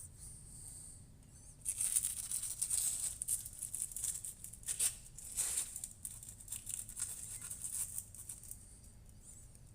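Rustling and scraping handling noise, with a few short knocks, starting about two seconds in and fading near the end, as a 5-pound weight is hung on the end of a lever bar.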